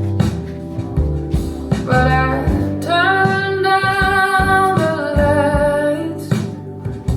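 Recorded music played through high-end hi-fi loudspeakers: a singer holding long notes over guitar and a plucked bass line, the voice coming in about two seconds in.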